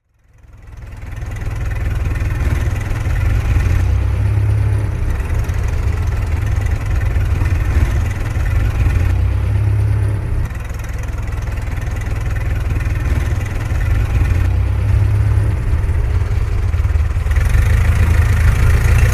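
Old car's engine idling with a steady low rumble, fading in over the first couple of seconds and growing a little louder near the end.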